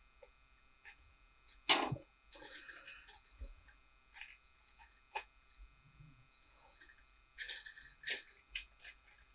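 Small 3D-printed PETG plastic parts being handled and fitted together: light clicks, one sharp knock just under two seconds in, and two spells of scratchy rustling from plastic rubbing on plastic.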